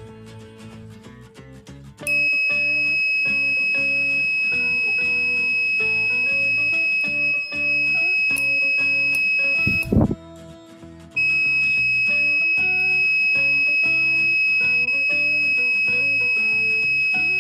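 Electronic buzzer of a breadboard fire alarm sounding one steady high-pitched tone, set off by its IR flame sensor detecting fire. It starts about two seconds in, cuts off for about a second near the middle with a short thump in the gap, then sounds again, over guitar background music.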